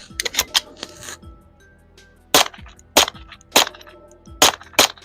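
Suppressed Walther PPK/S .22 LR pistol firing, with a SilencerCo Switchback 22 suppressor on the barrel. A quick run of sharp cracks comes in the first second, then five shots follow at an even pace, about 0.6 s apart.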